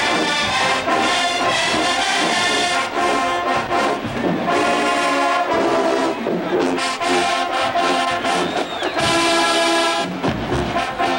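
College marching band playing in the stands: a full brass section with sousaphones blaring a tune over drums.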